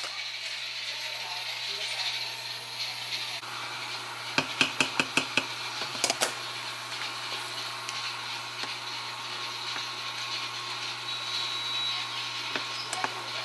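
Kitchen handling noises: a quick run of about six sharp clicks or knocks a little over four seconds in, then two more a second later, over a steady low hum and hiss.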